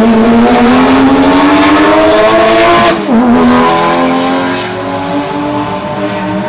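Race car engine at full throttle, its pitch climbing for about three seconds. It drops sharply at an upshift, then climbs again and fades as the car pulls away.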